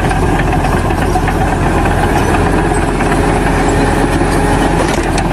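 A loud engine running steadily with a heavy low rumble, typical of construction machinery.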